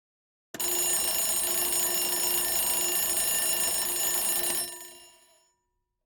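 Electric alarm bell ringing continuously. It starts suddenly about half a second in, rings steadily for about four seconds, then stops and rings out over about a second.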